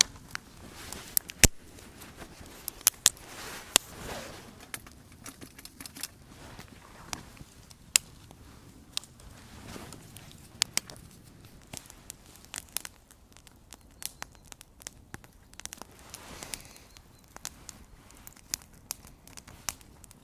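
Small wood campfire crackling, with irregular sharp pops and snaps and a few softer rushes of noise in between.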